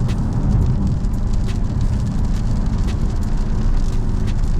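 Mercedes-AMG GLC 63 S's twin-turbo V8 running hard under full-throttle acceleration, a loud deep rumble, with rain hitting the car and scattered sharp ticks.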